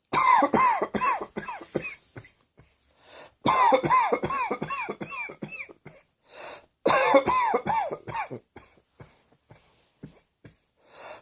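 A person coughing in three fits, each a rapid run of short coughs lasting about two seconds, with a hissing breath drawn in between fits. The last fit trails off into a few weaker coughs.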